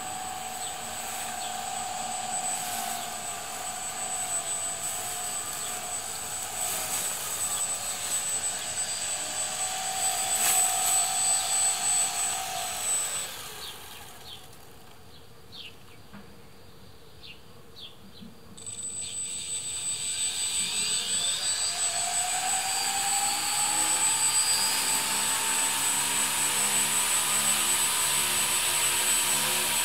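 Electric motors of a homemade RC lawn mower built on an old electric wheelchair, running with a buzzing whine whose pitch wavers. Around the middle the whine dies away for about five seconds, with a few clicks, then the motors spin back up with a rising whine and run on steadily.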